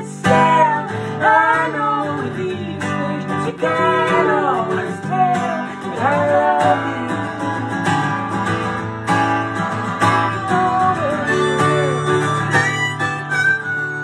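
Acoustic guitar strummed steadily, with a harmonica playing a bending melody over it.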